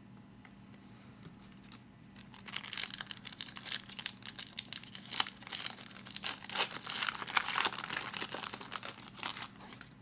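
Foil wrapper of a trading card pack being torn open and crinkled by hand, a dense crackling that starts about two seconds in and runs until near the end.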